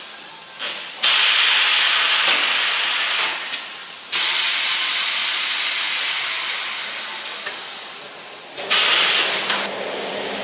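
Compressed air hissing in loud bursts from a tyre changer's pneumatic bead breaker as it presses the bead of an old military tyre off its rim. The hiss starts abruptly about a second in, starts again about four seconds in and fades slowly, and a short burst comes near the end.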